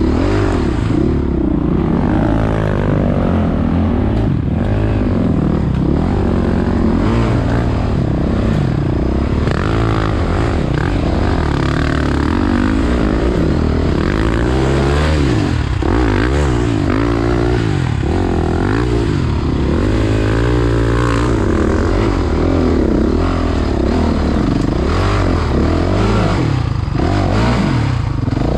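Several motocross bikes' engines revving up and down at once, their pitches rising and falling and crossing over one another, over a steady low rumble.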